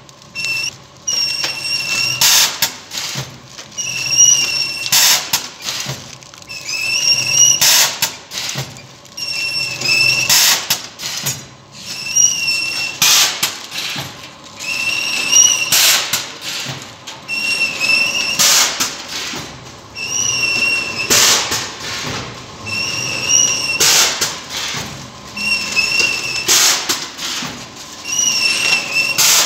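Automatic powder packing machine with an auger filler cycling steadily. It repeats about every two and a half to three seconds, and each cycle has a short wavering squeal and sharp noisy bursts as a packet is filled, sealed and cut.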